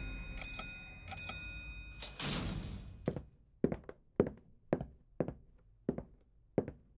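Elevator sound effects: the floor-indicator dial ticks three times against a ringing chime, and a rush of noise follows as the door opens. Then come seven evenly spaced thunks, about two a second.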